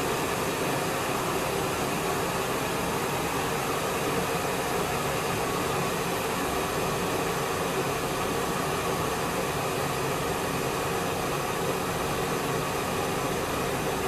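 Defort DEK-317-F glass electric kettle heating water towards the boil, not yet boiling: a steady, even hiss.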